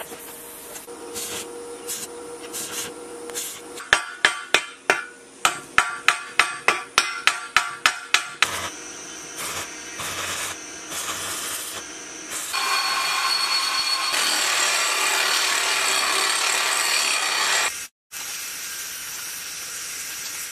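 Steel fabrication sounds: a run of about fifteen sharp knocks on steel, roughly three a second. Then comes the steady hiss and crackle of an electric welding arc, and near the end an aerosol spray paint can hissing.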